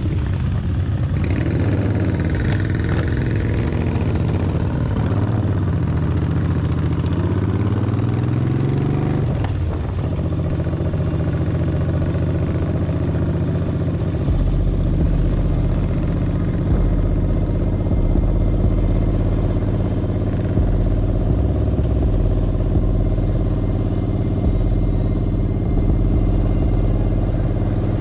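Cruiser motorcycle engines running as the group pulls away and rides on. The engine pitch climbs as the bikes accelerate about eight seconds in, then holds steady at cruising speed.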